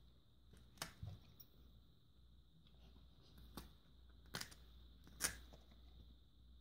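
Labrador retriever chewing and tearing at a black rubber chew toy. The toy gives off a handful of short sharp crunches and snaps, the loudest about five seconds in.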